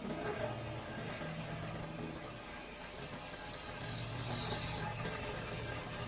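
CNC compound machine running while processing valve fittings: a steady low machine hum with a high hiss over it that cuts off about five seconds in.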